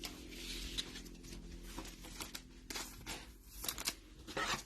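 Trading cards being handled and flipped through: soft irregular rustling and light clicks of card stock, over a faint steady hum.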